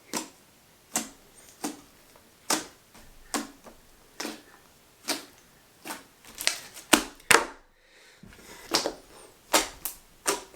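Fingers poking into slime, each poke a sharp click or pop, about one a second. They get quicker and louder around seven seconds in.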